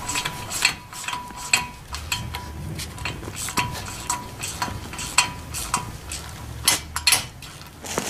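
A wrench working 10 x 1.5 bolts threaded into the back of a GMC Yukon's front wheel hub: irregular metallic clicks and clinks as the bolts are cranked down to press the rust-stuck hub out of the knuckle.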